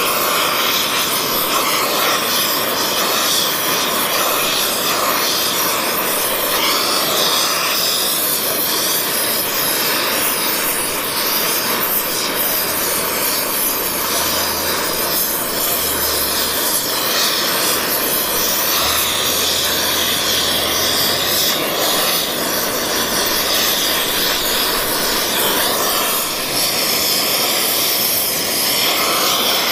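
Oxyfuel torch flame running with a steady, even hiss while brazing rod is fed into a crack in a cast iron pump housing.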